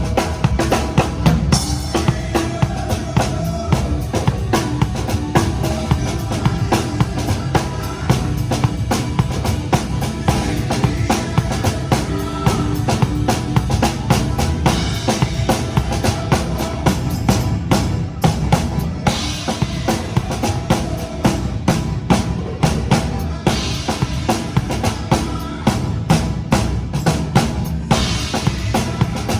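Pearl Reference drum kit played in a steady beat of bass drum and snare along with a recorded song, with several cymbal crashes.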